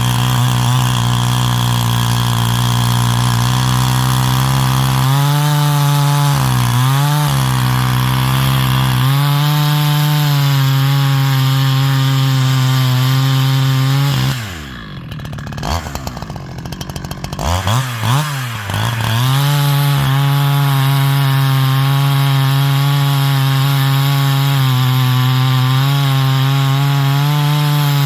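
70cc two-stroke chainsaw with a 25-inch bar cutting a stringybark log at full throttle. The revs dip briefly a few times, fall to idle about halfway through for a few seconds with a couple of quick blips, then climb back to full throttle for the rest.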